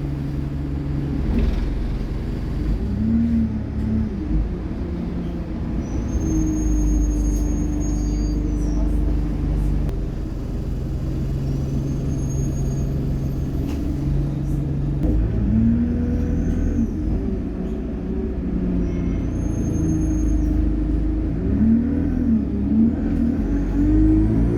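ADL Enviro200 bus's diesel engine running under load, with a high turbo whine that swells and fades several times as the engine note rises and falls through the Allison automatic gearbox's shifts.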